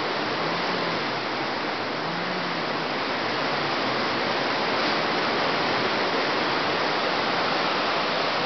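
Storm wind blowing hard and steadily through the leaves of tall trees, a dense, unbroken rush of noise from Hurricane Irene's winds.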